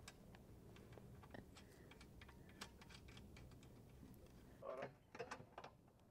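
Faint, irregular clicks and light handling noise from hands working greenhouse plastic film and metal hardware. A small cluster of louder clicks comes near the end, as a wrench is fitted onto a bolt.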